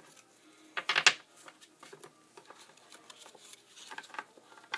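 Pokémon trading cards being handled: a brief rustle about a second in, then a few faint ticks near the end.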